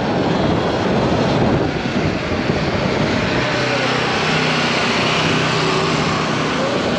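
Wind rushing over the microphone during a ride on an electric dirt bike, with a faint motor whine that rises and falls in pitch a couple of times.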